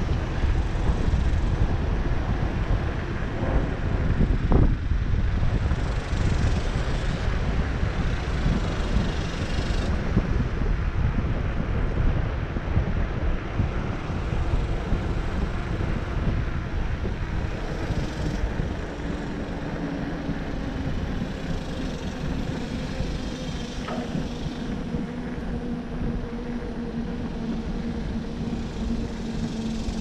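Wind buffeting the microphone and a mountain bike's tyres rolling along a concrete path, with one knock about four seconds in. From a little past halfway, a steady hum from the rolling bike comes in and slowly falls in pitch.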